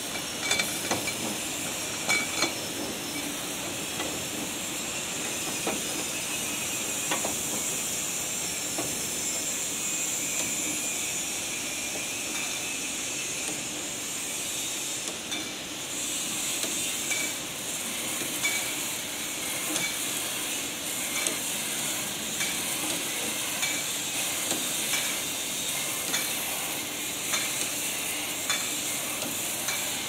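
Rotary glass-bottle rinsing machine running: a steady hiss of rinse spray into the inverted bottles, with scattered sharp clinks of glass bottles knocking together in the grippers and on the conveyor.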